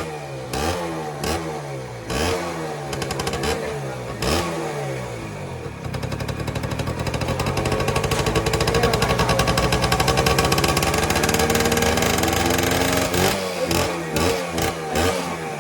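Suzuki Max 100 single-cylinder two-stroke motorcycle engine on its stock exhaust, revved in quick throttle blips about once a second, each falling back, then held at higher revs for about seven seconds before dropping back with a few more short blips near the end.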